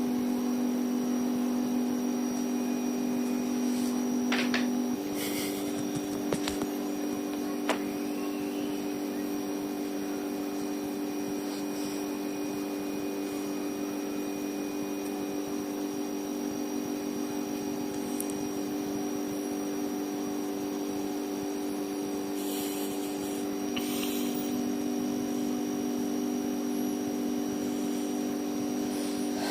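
A steady mechanical hum made of several fixed tones, with a few short faint rustles and clicks. One of its tones drops out about five seconds in and comes back near the end.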